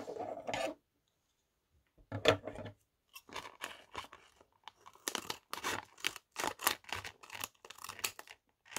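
Scissors cutting across the top of a plastic blind bag: a run of short, irregular snips starting about two seconds in.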